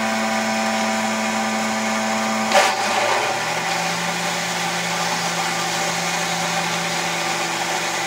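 American Flyer toy coal loader running: a steady electric-motor hum with several tones, which drops lower in pitch with a brief clatter about two and a half seconds in.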